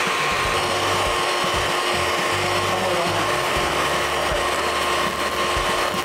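Electric hand mixer running steadily, its twin beaters whipping egg whites into a thick meringue in a glass bowl, beating past soft peaks toward stiff peaks.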